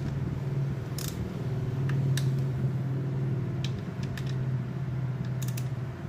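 A few sharp, spaced metallic clicks from a torque wrench tightening the engine-cover bolts, over a steady low hum.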